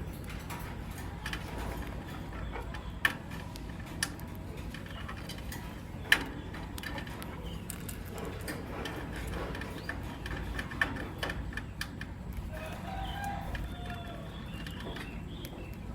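Lovebirds, a masked lovebird and a pastel white lovebird, giving short chirps, with a denser run of chattering calls near the end. A few sharp taps sound between them, the loudest about six seconds in, over a low steady hum.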